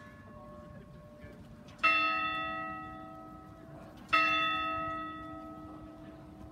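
A tower bell strikes twice, a little over two seconds apart. Each stroke rings out with a cluster of overtones and slowly fades.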